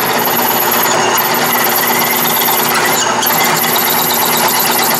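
Metal lathe running steadily while a 15/32-inch twist drill in the tailstock bores into spinning aluminium stock, opening the hole up before reaming.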